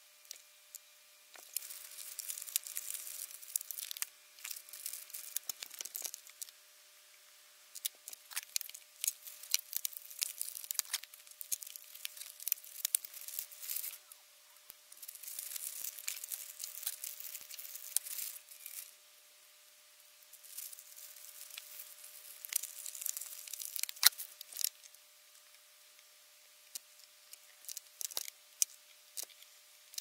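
Hands fitting graphics cards into a wooden mining-rig frame: irregular flurries of clicks, taps and rustling, with quiet gaps between them.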